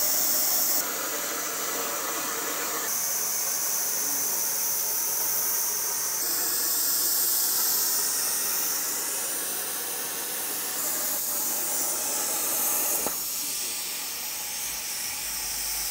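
Plasma torch of a Tormach 1300PL CNC plasma table cutting steel plate: a steady high hiss of the arc and its air jet, stepping abruptly louder and softer a few times, with a single click about thirteen seconds in.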